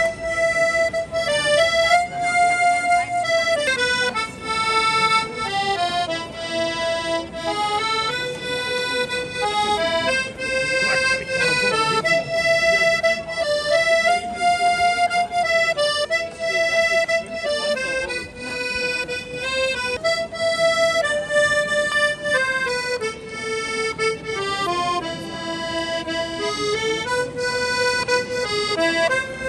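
Instrumental music: a single melody of held notes, moving in steps, over a steady lower accompaniment.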